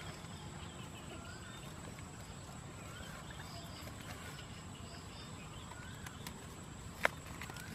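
Small bird giving short, faint rising chirps every second or two, with a single sharp click about seven seconds in.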